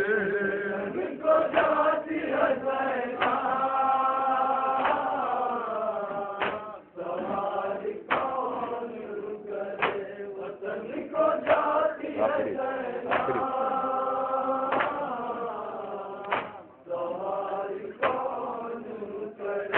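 Men's voices chanting a noha, a Shia mourning lament, in long drawn-out notes with short breaks between phrases.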